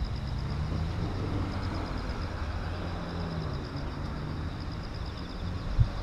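Cars driving slowly over a railway level crossing: engine and tyre noise with an engine tone that rises and falls, and a faint, fast high-pitched pulsing in the background.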